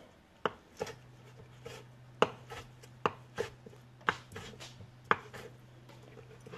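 Knife chopping roasted tomatoes on a wooden cutting board: sharp, irregular knocks roughly every half second to a second. A low steady hum sets in about a second in.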